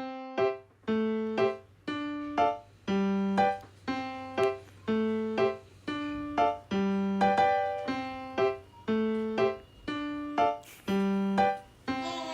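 Background music: a keyboard or piano melody of short, separate notes in an even rhythm.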